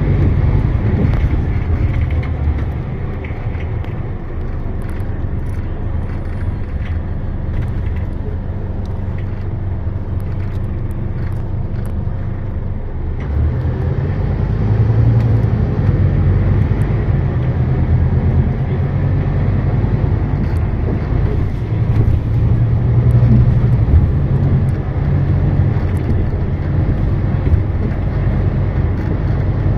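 Scania K320UB city bus's rear-mounted diesel engine droning under way, heard from inside the cabin with road noise and light rattles. The engine grows louder about halfway through, swelling and easing as the bus pulls.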